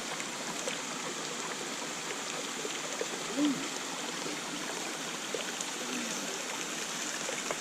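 Steady rushing of a small waterfall on a steep mountain creek, water pouring and splashing over rock.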